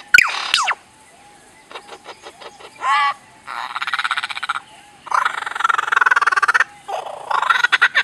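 Superb lyrebird singing a run of mimicked sounds: a quick falling zap, a few clicks, a short rising whistle, then long stretches of rapid rattling buzz.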